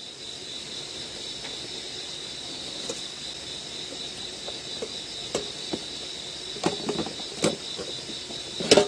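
Night crickets chirring steadily in an even, high-pitched drone, with a few scattered short clicks and knocks, the loudest near the end.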